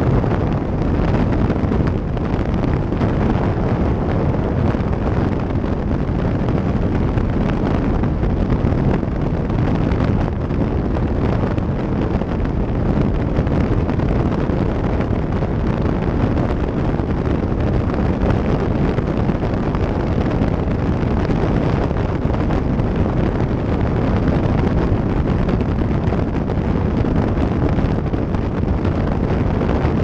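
Steady wind noise rumbling over the camera microphone on a Kawasaki sport motorcycle cruising at highway speed, with the engine and road noise buried under it.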